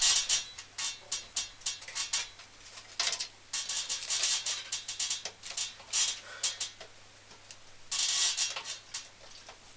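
Small metal screws rattling and clicking as they are sorted and fitted to secure a graphics card's bracket in a PC case: quick irregular clusters of sharp clicks with short pauses between them.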